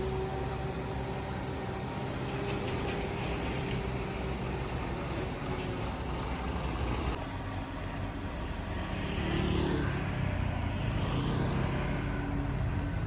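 Diesel engine of heavy construction machinery running, getting louder about nine seconds in.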